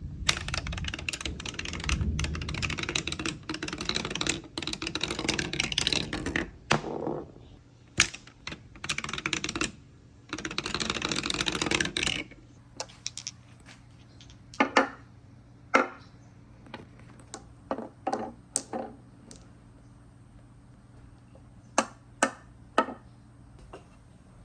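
Marbles rolling and clattering down a wooden marble-run track: a dense, rapid rattle for about the first twelve seconds with two short breaks, then scattered single clicks and knocks.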